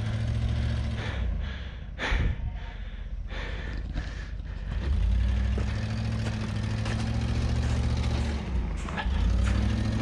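Land Rover Discovery's engine running at low revs as it crawls over snow. The engine note grows louder about halfway through and again near the end, with a few short sharp noises over it.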